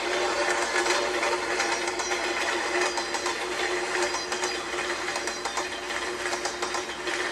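Train running sound effect: a fast, continuous clickety-clack of wheels over the rails above a steady hum.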